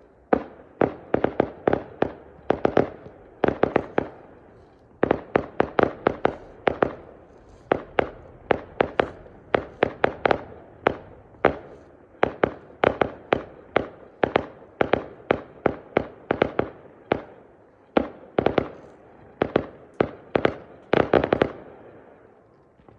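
Fireworks going off: rapid volleys of sharp bangs and crackles, several a second, in clusters with short pauses, dying away near the end.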